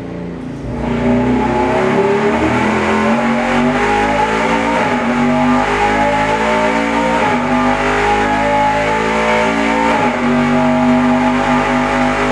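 Roush Yates Ford Daytona Prototype racing V8 (Cammer) running hard on an engine dynamometer, driven through a simulated lap of Daytona. It comes up to a loud, steady high-rev note about a second in, with two brief dips in pitch in the second half.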